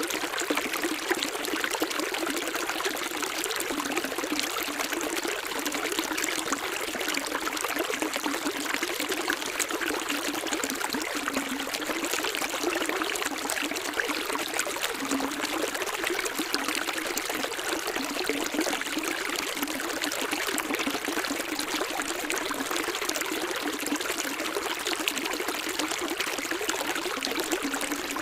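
Running water of a small stream, flowing and trickling steadily, with a bright, even splash and no deep rumble.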